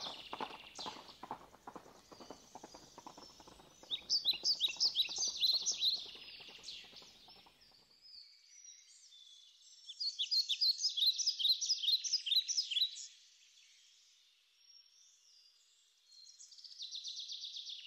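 Birds chirping in short bursts over a steady clip-clop of horse hooves; the hoofbeats stop about eight seconds in, leaving only the birdsong.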